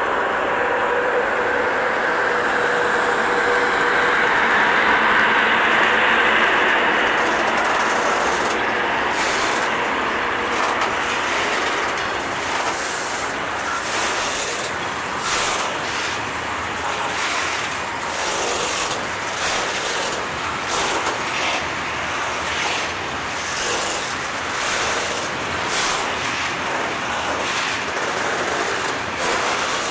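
ET22 six-axle electric locomotive running past at speed hauling a loaded freight train, a steady hum with a couple of steady tones that is loudest about five seconds in. Its freight wagons then roll by with a rhythmic clatter of wheels over rail joints, roughly one or two clacks a second.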